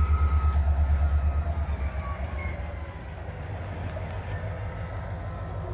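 Norfolk Southern #3044's diesel locomotive engine working under throttle with a loud, throbbing low rumble. About two seconds in it fades to a steadier, quieter rumble, while a thin high whine slowly drops in pitch.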